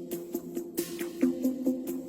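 Electronic background music: repeating synth notes over a steady percussive beat, with swelling hiss sweeps.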